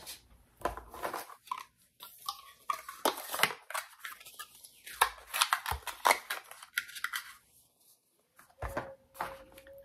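Cosmetic products and their packaging being handled: irregular clicks, taps and rustling of cardboard and plastic, with a low knock near the end.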